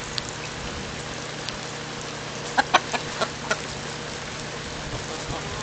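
Chickens pecking at an ear of corn held in the hand, with a quick run of about five sharp beak taps around midway, over steady rain.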